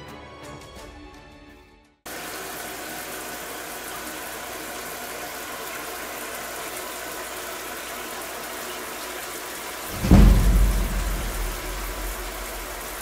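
Background music fades out and stops. A steady hiss follows, and about ten seconds in a loud deep boom dies away over a couple of seconds.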